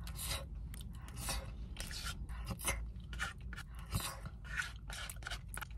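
Close-up mouth sounds of chewing a spoonful of red beans and rice: an irregular run of short wet clicks and smacks.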